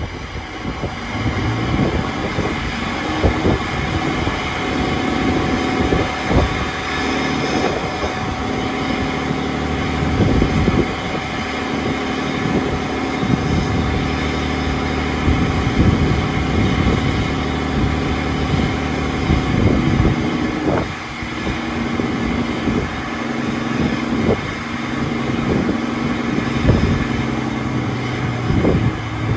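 Second-generation 5.9 L Cummins diesel, swapped into a Ram pickup, idling steadily with its exhaust close by.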